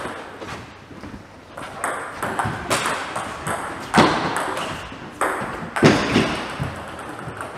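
Table tennis rally: the ball clicking off bats and the table in quick alternation, with two louder, sharper hits about four and six seconds in.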